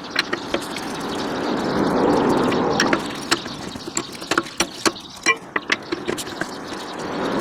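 Wheel-change work sounds: a broad hiss swells and fades over the first few seconds, like a passing car. It is followed by scattered metallic clicks and knocks as the space-saver spare wheel and its nuts are handled.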